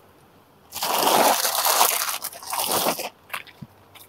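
Plastic packaging crinkling and rustling loudly as a bagged set of bangles is handled, starting about a second in and lasting about two seconds, followed by a few light clicks.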